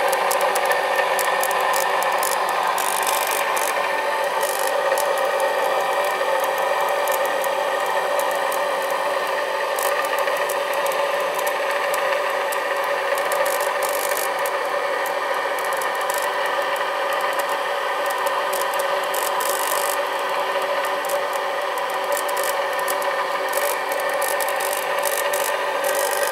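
Bull Motors Admiralty Pattern W7893 rotary inverter (a DC motor driving a 230 V AC generator) running steadily: a constant hum-whine of several steady tones with a rasping scrape of carbon brushes on the commutator. Most of the noise comes from the brush end, which the owner takes as a sign the brushes need cleaning.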